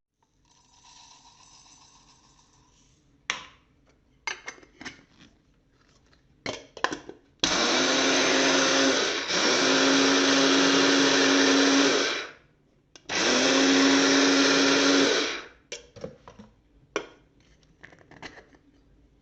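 Electric blade coffee grinder running in three pulses, the middle one longest, its motor giving a steady hum under the whirr of the spinning blades. Short clicks and knocks of handling come before and after the pulses.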